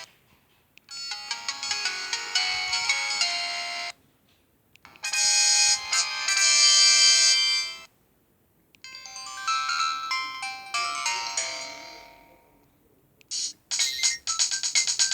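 Samsung SGH-X210 mobile phone playing a run of short electronic ringtone melodies one after another, each a few seconds long, with brief silences between them. The last one is a fast, rapidly repeating pattern.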